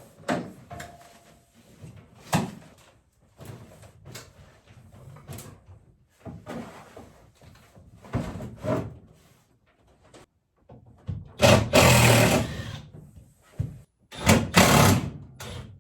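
Irregular knocks, clatter and scraping of gear being handled and moved while a boat is cleared out, with two longer, louder scraping bursts near the end.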